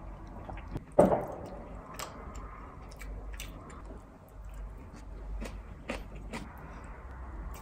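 Eating sounds: chewing, with small clicks of chopsticks and a wooden spoon against plastic takeaway containers, and one louder knock about a second in, over a low room hum.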